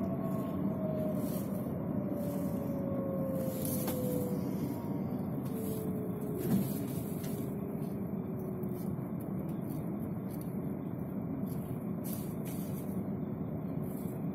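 Steady rumble of a moving city bus or tram heard from inside the passenger cabin, with a motor whine that falls slowly in pitch twice as the vehicle slows, and a single knock about halfway through.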